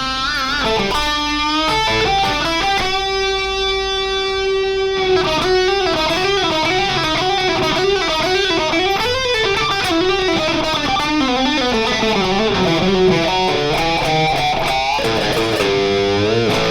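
Distorted electric guitar lead played on the neck pickup through a Friedman BE-Mini amp: single-note lines with wide vibrato and bends, and one long sustained note held for about two seconds a few seconds in.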